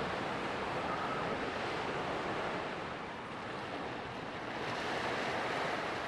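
Ocean surf washing on the shore, a steady rushing noise that eases a little and swells again about five seconds in.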